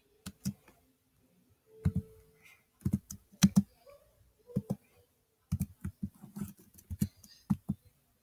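Typing on a computer keyboard: irregular key clicks in short runs, with pauses between them.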